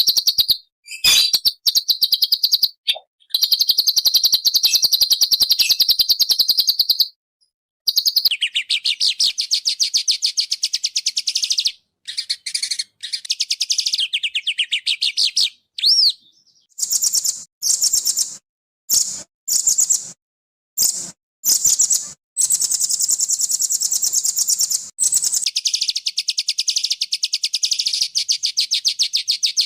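Small songbird singing a fast, dense trilling song of rapid, high-pitched repeated notes. It comes in long runs that stop abruptly, with short phrases and brief silences toward the middle.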